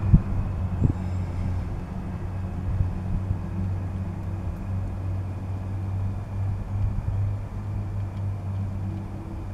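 Steady low background hum or rumble, with a couple of short clicks in the first second.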